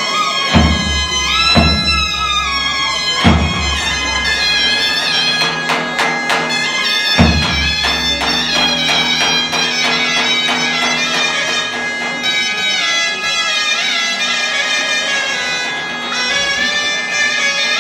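Two zurnas playing a slow zeybek melody, one holding a steady drone note under the other's tune, with a few heavy davul strikes in the first half.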